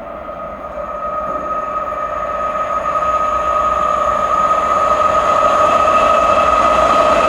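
Freight train approaching at speed, growing steadily louder, with a steady high whine over the rumble.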